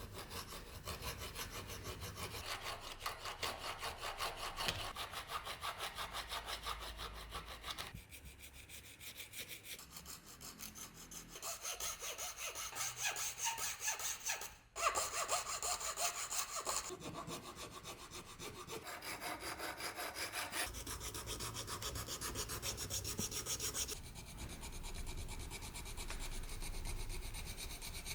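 A hand saw cutting wood with rapid, steady back-and-forth strokes, stopping briefly about halfway through.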